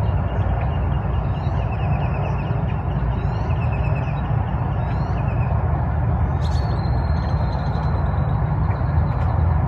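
Birds chirping and trilling over a steady low rumble. About six and a half seconds in, a thin high steady note starts and holds.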